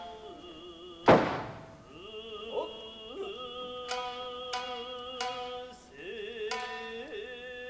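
Nagauta accompaniment: shamisen plucks under a long, wavering sung line, with one loud, sharp percussive strike about a second in.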